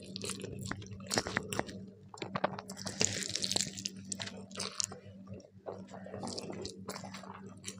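Close-miked eating: a person chewing and biting with loud wet smacks and sharp mouth clicks throughout, some crunch among them. A faint steady low hum runs underneath.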